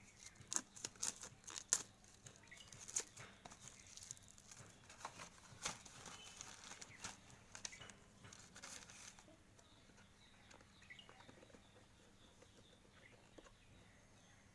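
Packaging being worked open by hand: crinkling, tearing and sharp clicks and scrapes for most of the first nine seconds, then only faint handling.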